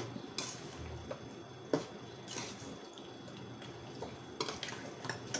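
Chicken pieces and thick masala being stirred and scraped with a spatula in a stainless steel kadai over a low flame, as the masala is sautéed (kasha) into the chicken. A few knocks of the spatula against the pan, the sharpest about one and a half seconds in.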